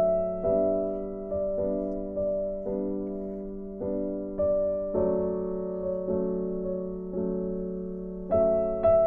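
Slow, gentle piano music: notes and chords struck about once a second, each fading away before the next.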